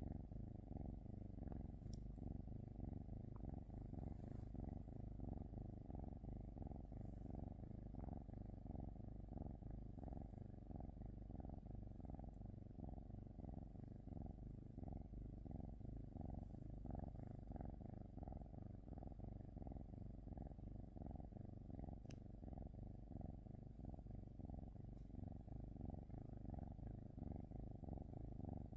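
Norwegian forest cat purring steadily, a low continuous rumble that pulses in an even rhythm.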